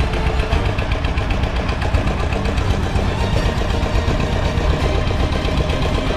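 An engine running steadily at a constant speed, with a fast, even pulse.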